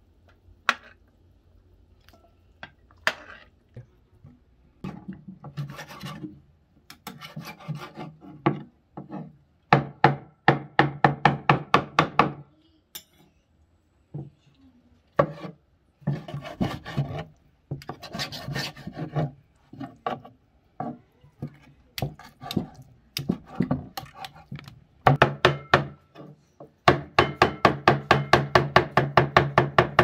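Kitchen knife chopping a boiled potato on a wooden cutting board: bursts of quick strokes with short pauses, preceded by a few scattered clicks in the first seconds.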